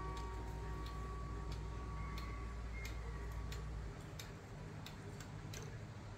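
German SBS wall clock with a Feintechnik 661 movement ticking steadily, about one tick every two-thirds of a second. The last ring of its bing-bong gong-rod strike fades out about a second in.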